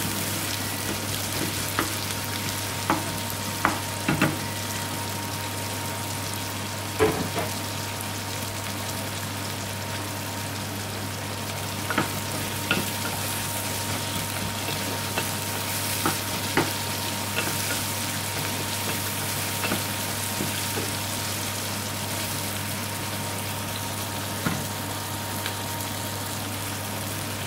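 Diced onions sizzling steadily in ghee in an aluminium pan, with a wooden spoon knocking against the pan now and then as they are stirred.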